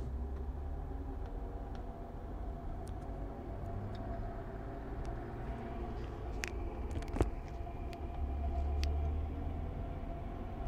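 BMW E36 325i driving, with steady road and engine rumble and a faint metallic scraping whistle from the passenger-side wheel. The owner found no debris in the brakes, though the rotor turns a little stiffly at one point. There is a sharp click about seven seconds in.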